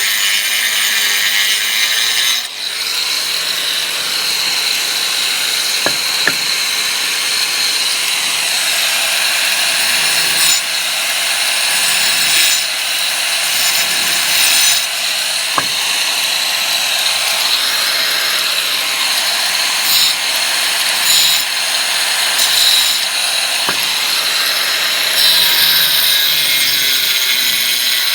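A power tool running continuously, a steady high-pitched whine over a hissing cutting noise, with a brief break about two and a half seconds in.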